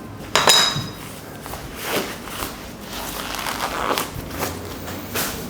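A sharp metallic clink with a brief ring about half a second in, then scattered knocks and rustling as belongings are gathered and people walk.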